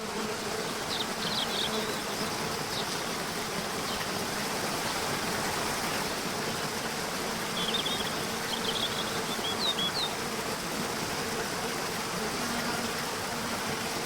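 Waterfall: a steady, even rush of falling water. A few short high chirps come through at about a second in and again around eight to ten seconds in.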